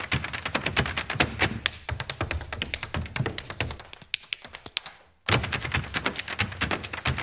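A line of Irish dancers' hard shoes tapping on a stage floor in rapid, dense clicks. The taps thin out and stop for a moment about five seconds in, then all start again at once.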